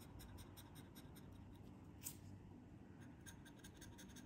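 Faint scratching of a metal tool on a scratch card, in many quick short strokes, with one louder stroke about two seconds in.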